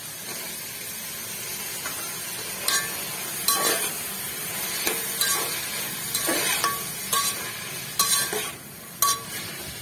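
Vegetables sizzling in a metal pot as chopped tomatoes are stirred in, with a slotted steel spatula scraping and knocking against the pot. From about three seconds in, the scrapes come roughly once a second.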